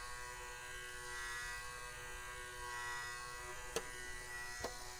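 ServoCity 65 rpm economy gearmotor driving a threaded-rod linear actuator, running with a steady buzzing whine. Two light clicks come near the end.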